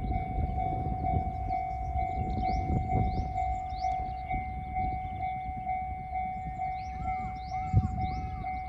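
Japanese railway level-crossing alarm ringing: an electronic bell repeating an even, rapid ding, with birds chirping over it.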